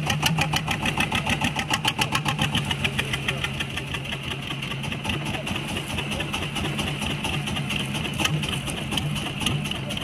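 Small boat engine idling with a fast, even chugging of about six beats a second, strongest in the first few seconds.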